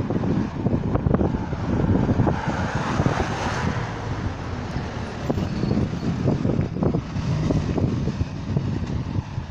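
Road traffic going by on the street alongside, with wind buffeting the microphone as a heavy, uneven rumble. A vehicle passes close about three seconds in.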